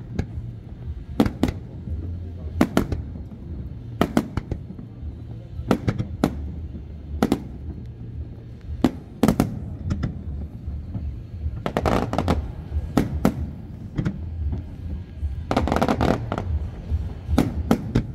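Aerial firework shells bursting in a fireworks display, a sharp bang every second or so. Two quick runs of crackling bangs come in the second half.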